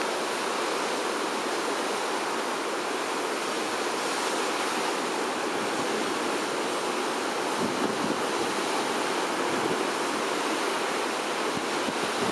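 Steady rush of ocean surf and moving seawater.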